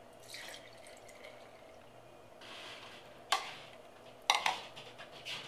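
Milk poured from a glass measuring cup into a glass mason jar, a soft liquid filling sound. It is followed by sharp knocks of glass on the stone counter about three seconds in and again a second later.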